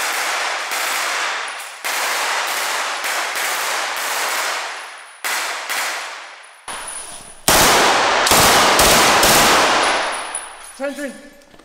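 Blank-firing assault rifles shooting in single shots and short bursts inside a large warehouse hall, each shot trailing a long echo. The fire is most rapid and loudest from about eight to ten seconds in, then stops.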